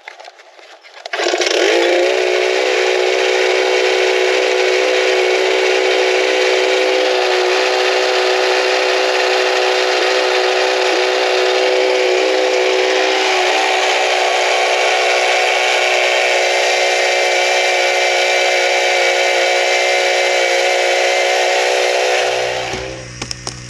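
Small petrol engine of a portable capstan winch running steadily at constant throttle while it hauls on the rope. It starts about a second in and drops away near the end.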